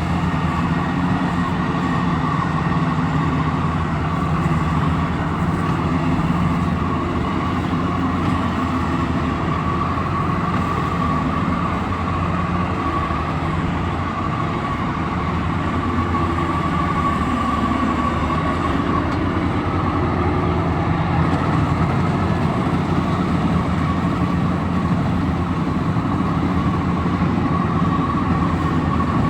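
Combine harvester running steadily: a constant diesel engine hum with a steady high whine from the machinery over it.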